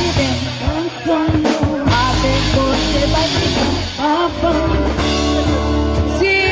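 Live rock band playing: a woman sings lead over electric guitars, bass and drums. The bass and drums drop out about six seconds in.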